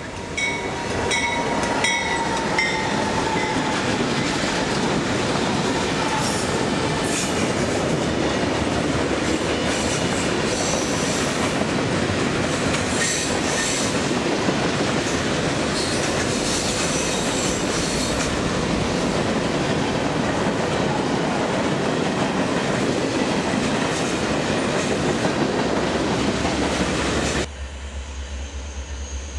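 CN diesel-hauled freight train passing close at speed. Regular clicking of wheels over the rails in the first seconds gives way to a long, loud, steady run of wheel-and-rail noise as the cars go by. About two seconds before the end it drops suddenly to a quieter low rumble.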